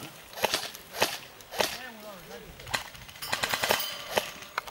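Airsoft guns firing: sharp snapping shots at irregular spacing, singly and in a quick cluster about three and a half seconds in, with faint distant voices.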